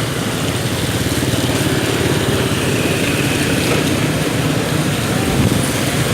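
Motorbike engine running steadily under way, with road noise from wet streets.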